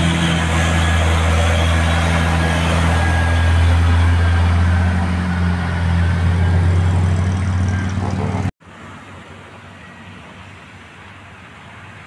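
Diesel cargo truck's engine running steady and loud under load as it climbs past on an uphill road. About two-thirds of the way through it cuts off suddenly to quieter, distant road traffic.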